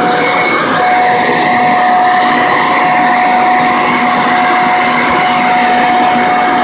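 Corded electric leaf blower running steadily: a motor-and-fan whine over a continuous rush of air.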